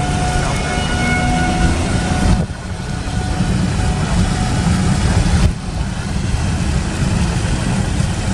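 Outdoor tornado warning siren sounding as a steady tone, heard faintly under a loud low rumble. The siren is clearest in the first couple of seconds and weaker afterwards, and the rumble dips sharply twice.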